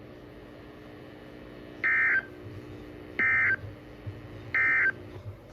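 Emergency Alert System end-of-message data tones from a broadcast receiver: three identical short, shrill bursts of SAME digital squawk about 1.4 seconds apart, over a faint steady hum. They signal that the severe thunderstorm warning message has ended.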